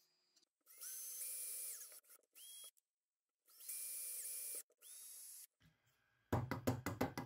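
Small electric power tool motor running in two bursts of about a second, each winding up to speed and back down with a whine, with a shorter, quieter run after each. Near the end comes a quick run of about eight clicks or knocks.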